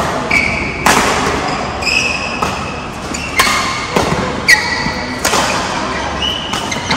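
Badminton rally: rackets striking a shuttlecock about once a second, with short high squeaks of shoes on the court mat between the hits.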